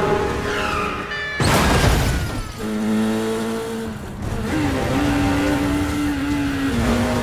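Motorcycle engine running hard under an action film score. There is a sudden loud rush about a second and a half in, then the engine holds a high steady note that dips and climbs again as the bike rides on.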